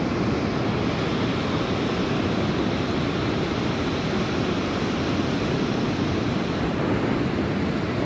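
Rough sea surf whipped up by a tropical cyclone, a steady rush of waves mixed with wind buffeting the microphone.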